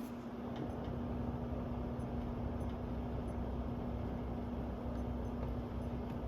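Vintage ILG box fan running steadily, a whooshing rush of air over a constant low motor hum. It is running a little slower than it probably should.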